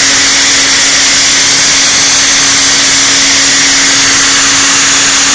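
CNC router spindle running steadily while engraving lettering into a sign sheet: a constant tone with a loud hiss over it.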